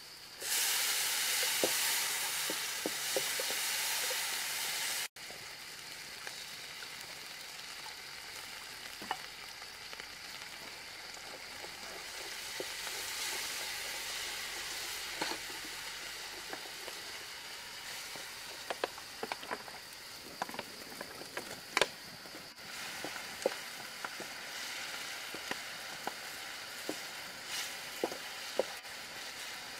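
Chopped chili and garlic sizzling in hot oil in an iron wok, stirred with a wooden spatula. The hiss is loudest for the first five seconds, then carries on steadily with scattered pops and crackles.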